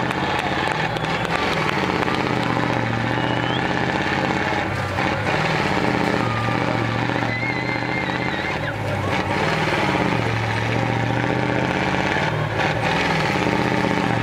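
Off-road trial truck's engine running hard, revving up and down repeatedly as the truck climbs a steep dirt slope under load.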